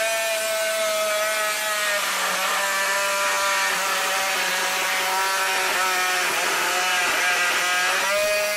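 A cordless oscillating multi-tool with a carbide blade cuts through a screw in thin RV wall paneling. It makes a steady buzzing whine with a grinding rasp, running at a middle speed setting. The pitch sags slightly as the blade bears down, then rises again near the end.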